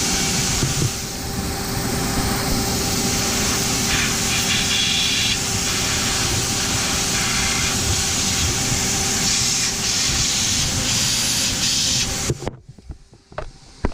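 Vacuum cleaner running as a blower, a steady rush of air with a constant motor whine, pushing air into a truck's exhaust system to find leaks. The sound cuts out abruptly near the end.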